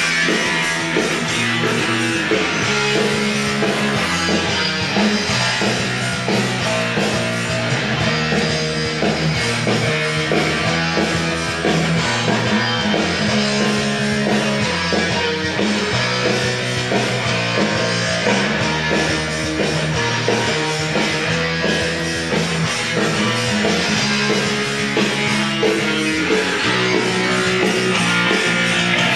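Rock music with guitar, played from a cassette on a Bang & Olufsen Beocord 5500 cassette deck through loudspeakers.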